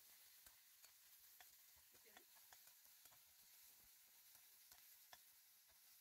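Near silence, with faint, irregular ticks of a metal spatula against a stainless steel pan as onions are stirred.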